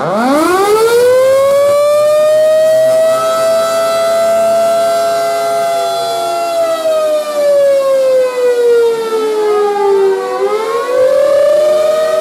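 Outdoor tornado warning sirens sounding for a weekly test. One siren winds up sharply at the start, holds a steady tone, slides slowly down over several seconds and climbs again near the end, in a slow wail. A second siren starts winding up about nine seconds in.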